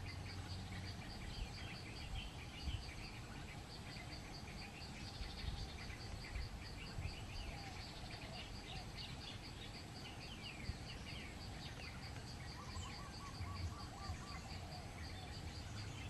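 Tropical forest ambience: an insect trilling in steady, evenly pulsed bursts, with scattered small bird chirps and calls over it and a short run of repeated lower bird notes near the end.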